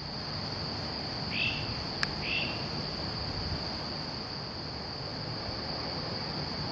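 A steady high-pitched chorus of insects over a low background rumble, with two short chirping bird calls about a second and a half and two and a half seconds in, and a single sharp click just after two seconds.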